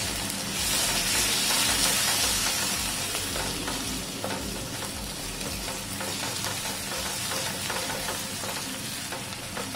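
Onion-tomato masala with ground spices sizzling in oil in a nonstick frying pan, stirred and scraped with a wooden spatula as the spices fry into the base. The sizzle is loudest in the first couple of seconds and eases off a little.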